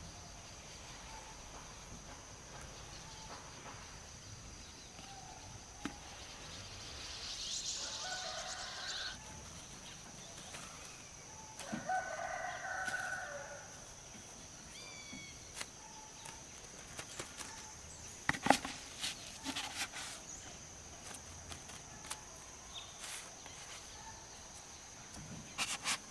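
Two drawn-out bird calls, the second about a second and a half long, amid scattered light knocks and clicks.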